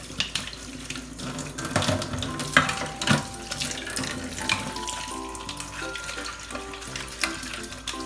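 Water running from a tap into a kitchen sink, with a few knocks of things being handled in it, over soft background music.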